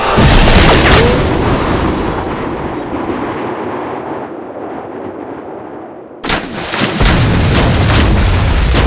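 Sound-effect explosion of a missile hitting an airliner in mid-air: a sudden loud blast just after the start, its rumble dying away over several seconds. About six seconds in, a second loud burst of noise with heavy low rumble sets in and holds.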